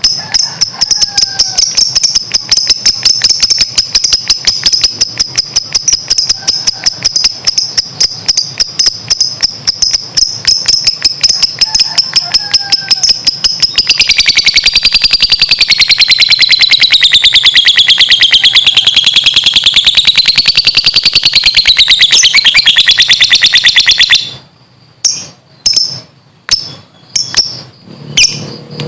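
Lovebird ngekek: a long, rapid chattering trill of high chirps. About halfway through it becomes faster and wavers up and down in pitch, then breaks off abruptly near the end and gives way to a few separate chirps.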